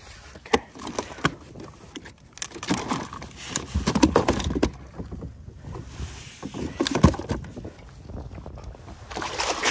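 Handling noises on a plastic fishing kayak as a freshly caught halibut is gripped and measured: sharp knocks of gear against the hull, rustling and water sounds, with a rushing noise near the end.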